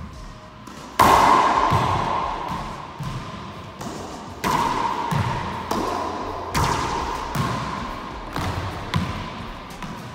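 A racquetball struck with a racquet and rebounding off the court's walls and hardwood floor: sharp cracks with an echoing tail, the loudest about a second in, then several more over the following seconds.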